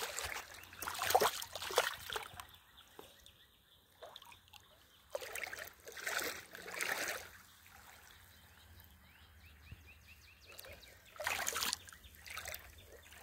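Irregular bursts of splashing in shallow water from a snake thrashing with a large fish it has seized, which it has taken on more than it can handle. The splashes come in three main spells, with quieter trickling between them.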